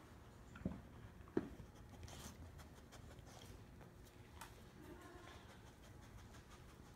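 Quiet movement of a dog nosing and pawing at a plush toy on a rubber floor: two soft thumps within the first couple of seconds, then faint ticks and rustles.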